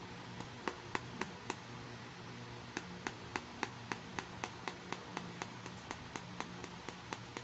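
Fingernails tapping on a small hard plastic toy piece: five quick taps, a pause of over a second, then an even run of about four taps a second.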